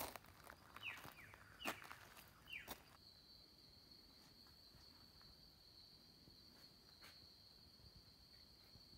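Near silence with faint background sounds: a few short falling chirps and light clicks, then from about three seconds in a steady high-pitched insect call.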